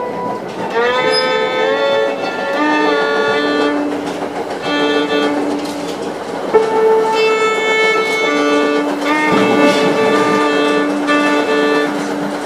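Violin playing long held notes, several sounding together, with upward slides into the notes about a second in and again near ten seconds.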